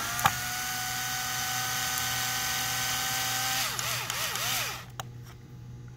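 Cordless drill/driver driving a screw into the lid of an RC truck's watertight receiver box. The motor whines at a steady speed for about three and a half seconds, then slows and picks up in a few quick dips before stopping about five seconds in.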